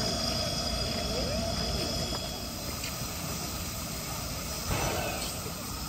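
Stationary C11 steam tank locomotive letting off steam with a steady hiss, with faint crowd voices.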